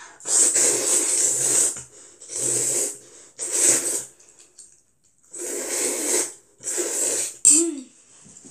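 A child loudly slurping long strands of Jjapaghetti noodles into the mouth, in five long pulls with short pauses between. A short voiced sound follows near the end.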